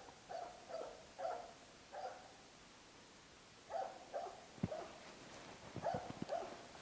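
Jämthund (Swedish elkhound) barking repeatedly at a moose it is holding at bay: about five barks in the first two seconds, a pause, then another run of barks from about four seconds in. A few sharp clicks in the second half, the loudest a little past halfway.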